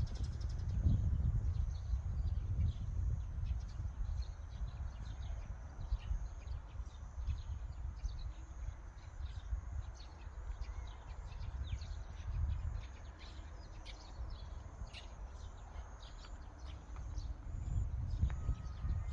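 Outdoor ambience: a heavy low rumble that rises and falls, with many quick high chirps from small animals over it.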